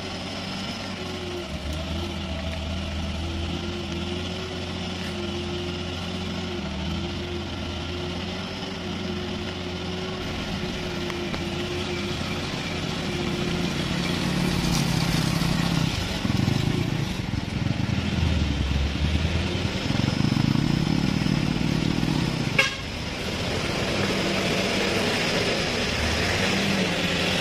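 A Mitsubishi Fuso truck's diesel engine working hard as the truck climbs a slippery mud slope under a heavy load. The engine note grows louder from about halfway through. About three-quarters of the way through there is a sharp click, and the engine drops back a little after it.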